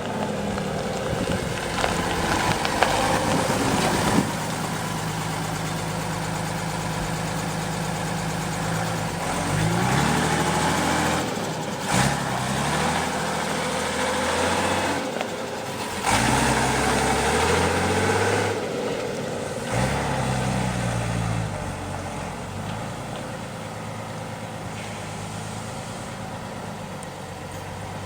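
Unimog FLU419's diesel engine running, its pitch climbing and dropping several times as it revs up and eases off, then settling to a steadier, quieter run near the end.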